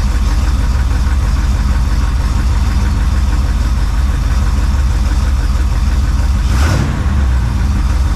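1966 Chevrolet C10 pickup engine idling steadily, still cold after its first start following reinstallation with a new oil pan, oil pump and rebuilt transmission. There is one brief swell in the sound about two-thirds of the way through.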